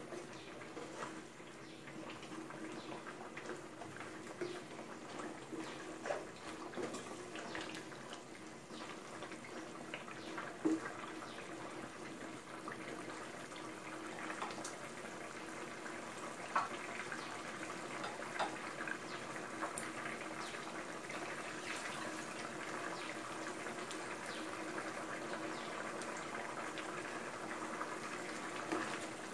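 Chicken green curry simmering in a pot, bubbling steadily, with a few light knocks now and then.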